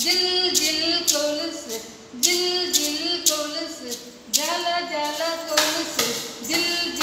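A woman singing a Tamil children's rhyme about buying anklets, with sharp hand claps keeping time about once a second.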